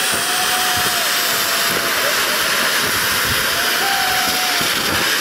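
Steady loud rushing hiss, with faint wavering tones rising and falling behind it.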